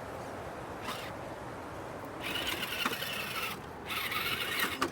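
RC rock crawler's electric motor and geared drivetrain whirring in two bursts, about two seconds in and again near the end, as the truck tries to drive out of a stuck spot, over a steady background hiss.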